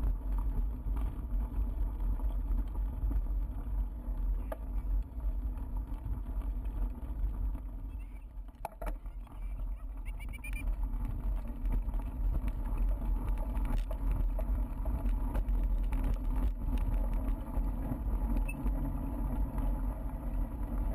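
Bicycle rolling over a gravel and dirt track: a steady low rumble of tyres and wind on the bike-mounted camera, with scattered clicks and rattles. It eases for a moment about eight seconds in.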